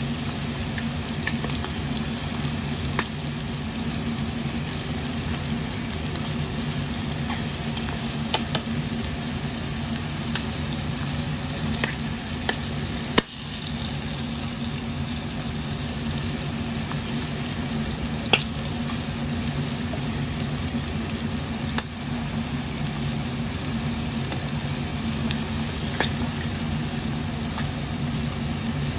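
Battered prawns deep-frying in hot oil in a pan: a steady sizzle. A few sharp clicks come from metal tongs turning them, the loudest about halfway through.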